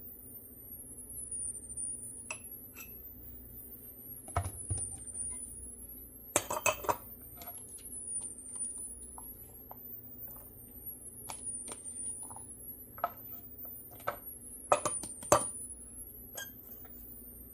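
Spoon clinking and scraping against a glass jar and canning funnel in scattered knocks. Two clusters stand out, one about six seconds in and a louder one near fifteen seconds.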